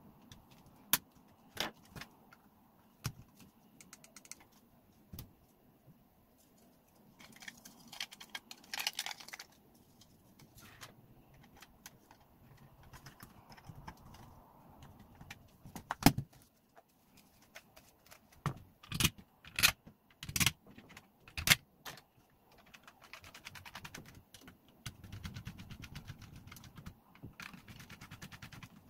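Hard plastic clicks and knocks as a DeWalt 18V battery pack's case is fitted back together by hand, the loudest about 16 s in. Near the end comes a run of fast, fine ticking as the case screws are driven in with a small screwdriver.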